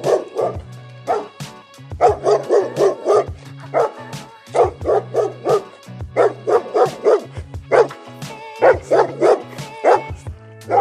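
Dog barking repeatedly in quick runs of several short barks with brief pauses between the runs, over steady background music.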